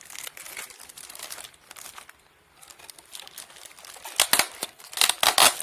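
Packaging being handled, crinkling and rustling, with two louder bursts of crackling near the end.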